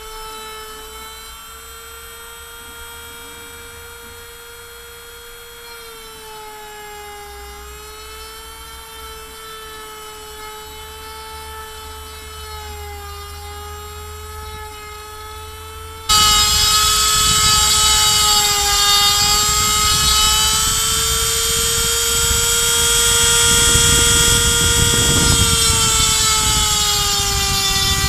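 Handheld 135 W rotary tool, used as the spindle of a mostly printed CNC router, running at high speed with a steady high whine that wavers slightly in pitch as its 3 mm bit mills pine. About 16 seconds in the sound suddenly turns much louder and rougher, with a rasping noise over the whine.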